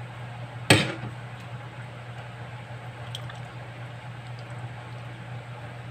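A metal ladle knocks sharply once against the wok about a second in, then the creamy chicken filling is scooped and poured into a foil baking tray with faint wet squelching and a few light ticks.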